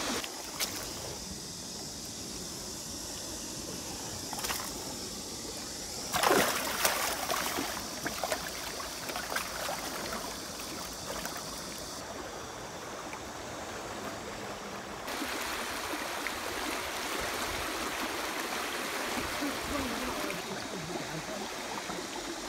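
River rapids rushing over a shallow riffle, a steady wash of moving water, with a louder burst of splashing about six seconds in.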